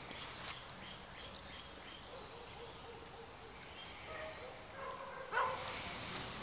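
Faint bird chirps, then a single dog bark about five seconds in.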